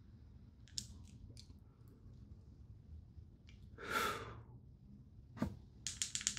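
A person exhaling a long breath of vapor about four seconds in, after a hit from a vape cartridge. A single knock follows, then a quick run of about five small clicks near the end.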